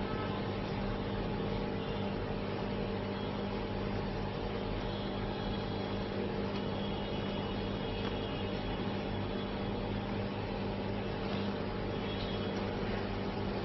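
Steady electrical hum with a constant hiss, unchanging throughout.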